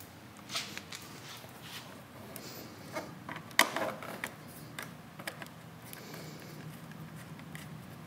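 Scattered light clicks and taps of a screwdriver and hands working a bolt on a motorcycle's inner fairing, the sharpest click about three and a half seconds in.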